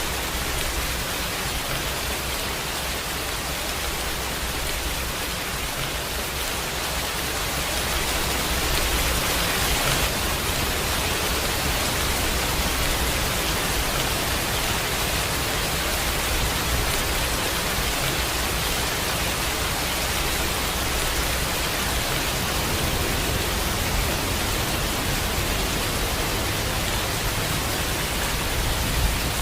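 Steady rain, an even hiss with no single drops or other sounds standing out, growing slightly louder about a quarter of the way in.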